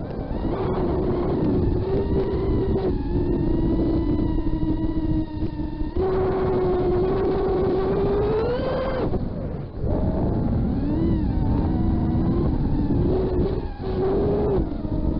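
FPV quadcopter's brushless motors and propellers whining, the pitch holding, stepping and bending with throttle. About eight seconds in it climbs higher, then drops off briefly near the ten-second mark before picking back up.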